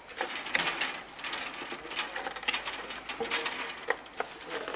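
A kiosk cover plate being slid into position over the head of the stand: irregular scraping and clicking of the plate against the housing, with a brief squeak about three seconds in.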